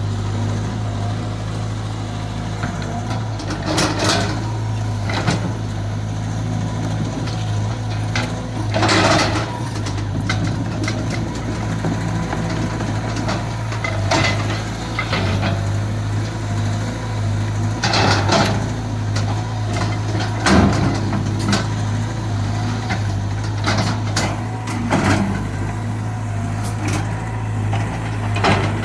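Caterpillar 320 GC excavator's diesel engine running with a steady low hum, with brief louder noises from the working machine every few seconds.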